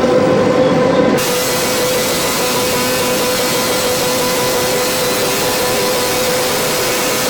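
Steady, loud rushing noise with a constant low hum under it. About a second in, the noise turns suddenly brighter and fuller, then holds steady.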